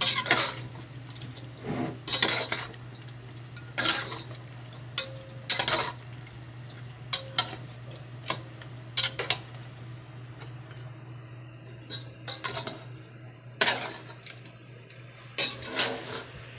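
A spoon scraping and knocking against the side of a metal cooking pot, stirring chunks of chicken and potato in adobo sauce. A stroke comes every second or two over a steady low hum.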